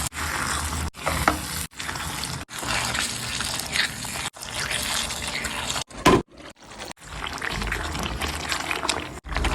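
Liquid cooking sounds from a kadai of paneer gravy, pouring and bubbling, in a string of short clips broken by sudden cuts.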